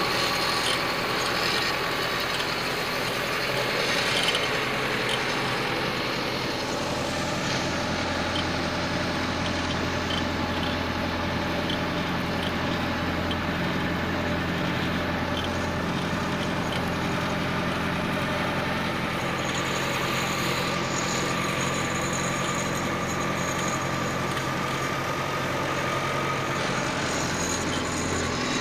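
Massey Ferguson 575 tractor's four-cylinder diesel engine running steadily while pulling a plough, with a deeper hum coming in about seven seconds in.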